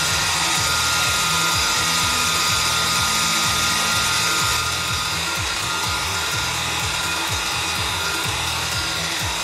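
Handheld electric hair dryer running steadily on hot air, a rushing hiss with a faint whine, drying glue-soaked paper-towel patches on speaker cones. It gets a little quieter about halfway through as it is moved over the second cone.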